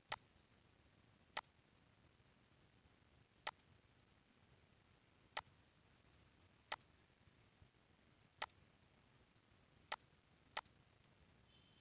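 Computer mouse clicking: eight short, sharp clicks spaced irregularly, a second or two apart, the last two close together near the end, over faint hiss.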